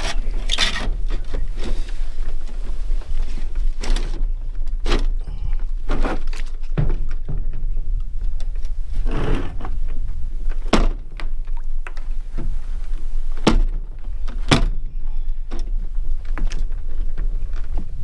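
A scatter of sharp knocks and thunks, about seven in all, over a steady low rumble of wind on the microphone.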